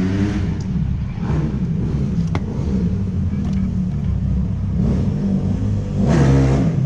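Dirt bike engine running steadily with a dense low rumble, a brief voice breaking in about six seconds in.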